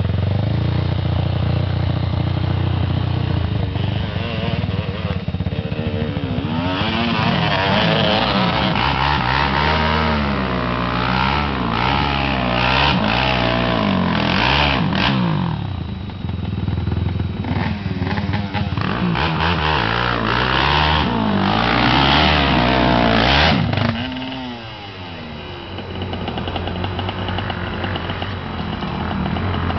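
Sport ATV engines revving hard as the quads accelerate past, pitch rising and falling again and again. Loudest in two long stretches, then it drops off suddenly and a quieter engine carries on.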